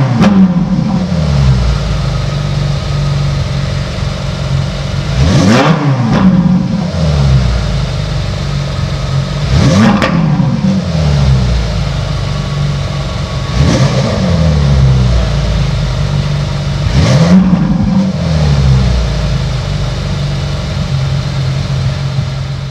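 Ferrari 458 Italia's 4.5-litre V8 idling and revved four times, each blip rising sharply in pitch and dropping straight back to idle, about every four seconds. It settles into a steady idle for the last few seconds.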